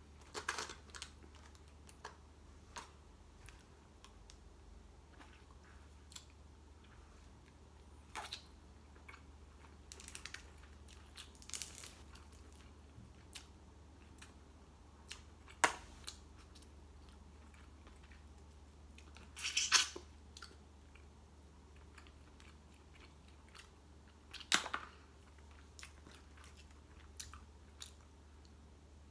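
A person eating a seafood boil by hand close to the microphone: quiet chewing and mouth noises, with scattered sharp crackles and clicks, a few of them louder in the second half.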